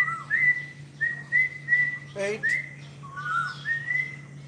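A songbird singing a run of short, clear whistled notes that slide up and hold briefly, about two or three a second, with a few lower arched notes between them. A steady low hum runs underneath.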